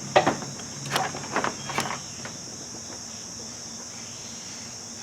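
A few sharp clicks and knocks in the first two seconds as the fan motor's cord is plugged in. A steady high chirring of crickets runs underneath.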